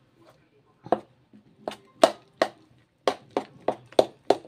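Metal spoon knocking against an enamel bowl as flour is stirred into thick grated potato and pumpkin batter: about nine sharp clacks, coming faster, about three a second, in the second half.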